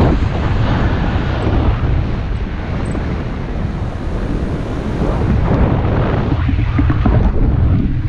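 Wind rushing over the microphone of a pole-held camera in flight on a tandem paraglider: heavy, low buffeting that swells and eases in gusts.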